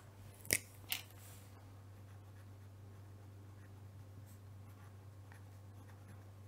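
Fineliner pen writing on paper, a faint scratching of the tip, after two sharp clicks about half a second and a second in. A steady low hum runs underneath.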